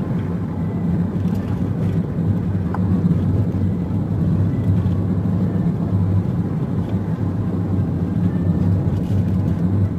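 A car's engine and tyres droning steadily as it drives along, heard from inside the cabin.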